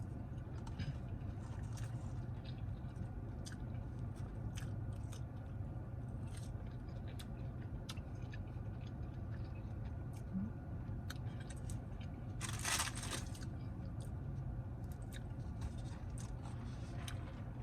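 Close-miked chewing and biting of a bacon cheeseburger, with small wet mouth clicks, over a steady low hum. A louder crunching rustle comes about twelve and a half seconds in.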